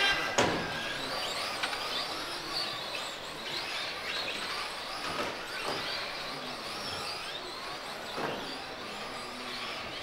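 Electric RC racing trucks running on a carpet track: a high motor whine that rises and falls as they speed up and slow for the corners, over steady tyre noise, with a few sharp clicks of trucks striking the barriers. An electronic tone cuts off right at the start.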